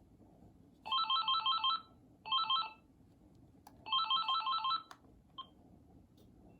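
AT&T cordless phone handset ringing with a fast trilling electronic ring in three bursts, the signal of a call being transferred to it, followed by a click and a short beep.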